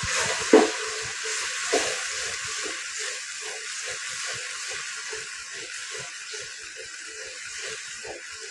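Chicken and freshly added yogurt sizzling with a steady hiss in a hot non-stick wok, while a wooden spatula stirs and scrapes at about three strokes a second. The hiss is loudest at the start and eases slowly.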